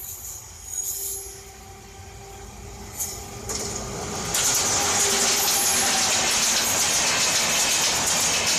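A WAP-7 electric locomotive and its express coaches approaching and passing at speed. Wheels run on the track, with brief high squeals near the start. The rail noise grows, and from about four seconds in becomes a loud, steady rush with rapid clatter.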